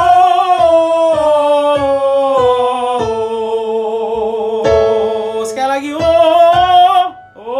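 A singer holding long vowel notes that step down in pitch, with vibrato on the held low note, then rise again near the end. Instrumental accompaniment keeps a steady pulse underneath.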